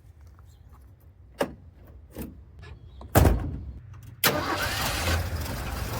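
A car or truck engine starting: a couple of clicks, then cranking about three seconds in, and the engine catches and runs loudly from a little after four seconds.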